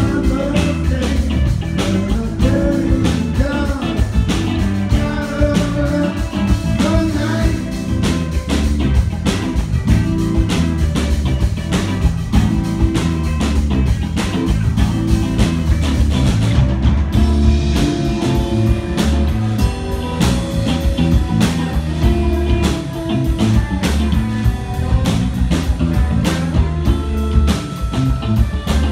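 Rock band playing live, with electric guitars and a drum kit and singing over them.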